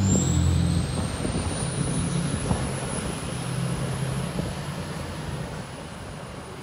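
A motor vehicle's engine passing close and fading steadily into the distance, with a thin high whine that rises and then holds.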